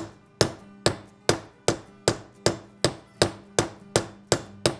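Hammer striking a seal driver in steady, evenly spaced blows, about two and a half a second, each with a short ring, driving a rubber-lipped oil seal into the gearbox side of a Triumph 650 engine case.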